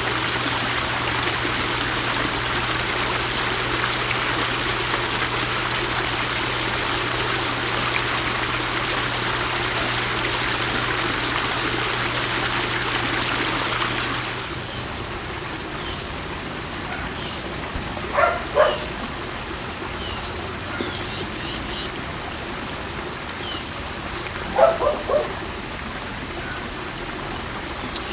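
A steady rushing noise with a low hum underneath cuts off abruptly about halfway through. Then, over a quieter outdoor background, birds call: a few short loud calls, one group of three in quick succession, and faint high chirps.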